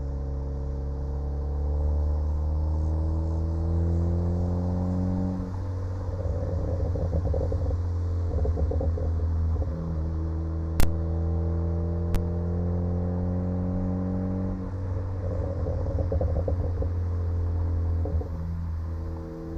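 A 2014 Ford Focus ST's turbocharged 2.0-litre four-cylinder exhaust climbs steadily through the revs, then crackles and pops on the overrun after lift-off, twice over. A single sharp bang comes about eleven seconds in. The crackles and pops come from the car's crackle tune, run with a catless downpipe.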